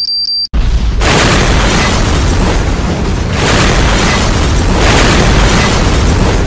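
Explosion sound effect: a loud boom about half a second in, then a long noisy blast that swells again several times. A fast high electronic beeping cuts off just before the boom.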